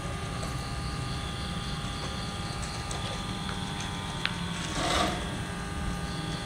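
Small omni-wheel robot's electric drive motors whirring steadily as it rolls along, with a sharp click a little after four seconds in and a short noisy burst about a second later.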